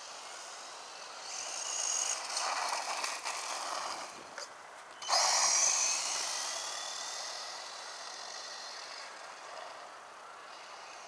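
Traxxas 1/16 Slash VXL RC truck's brushless electric motor whining at speed, high-pitched and rising and falling as it is driven. It swells about two seconds in, drops back briefly, then comes in suddenly and loudly about five seconds in and fades away with its pitch falling.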